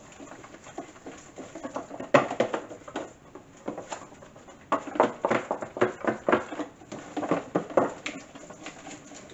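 A whisk stirring thick beer batter in a plastic container, with irregular clicking and scraping strokes against the sides. The strokes come faster and more often in the second half.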